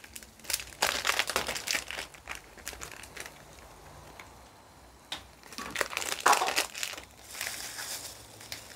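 Sugar-and-garlic sauce for pork-leg palo bubbling and crackling in a wok over an open flame, in irregular clusters of crackles with the loudest burst about six seconds in. The sugar is being cooked until it caramelises and darkens to colour the palo broth.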